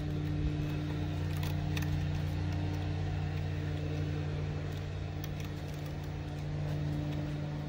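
Steady low mechanical hum, with two faint clicks about one and a half seconds in as a small metal pick works at a motor brush seized in its holder in the miter saw's motor.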